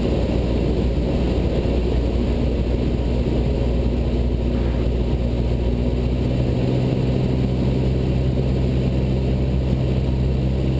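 Cessna 172 Skyhawk's piston engine and propeller droning steadily in flight, heard from inside the cockpit. The engine note shifts slightly about two-thirds of the way through.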